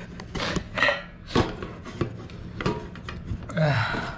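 A man blowing out several sharp, hissing breaths through an open mouth against the burn of very spicy Samyang noodles. The last, longer breath near the end carries a short, low falling groan. There is a sharp click in between.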